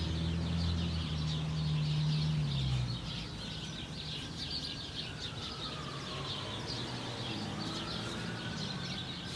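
Small birds chirping continuously outside the screened enclosure, with a distant siren slowly rising and falling from about three seconds in. A low steady hum is there at the start and stops just before three seconds in.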